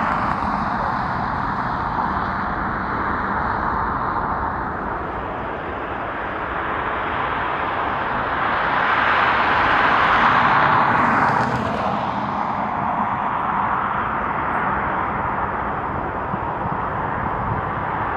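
Steady outdoor engine noise from passing vehicles, swelling to its loudest about ten seconds in and easing off soon after.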